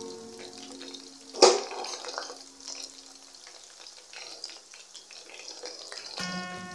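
Samosas deep-frying in hot oil, sizzling with a scatter of small crackles. A single sharp, loud crack comes about a second and a half in.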